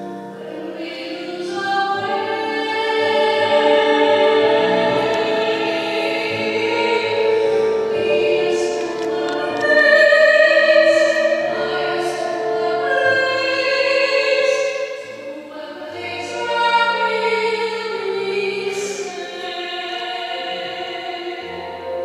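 A male classical singer singing a slow ballad with vibrato over musical accompaniment, in a duet performance.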